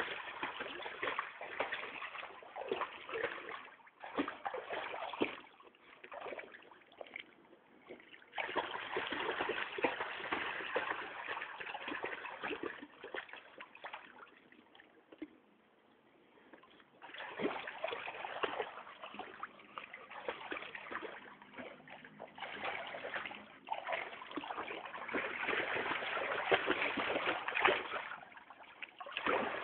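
Pool water splashing and sloshing as a bulldog paddles through it. It comes in loud stretches with a quieter lull near the middle.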